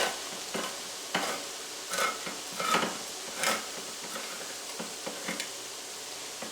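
Steady sizzling of onions frying in a pan, with a series of short metallic clicks and clinks about every two-thirds of a second, fading to fainter ticks after about three and a half seconds.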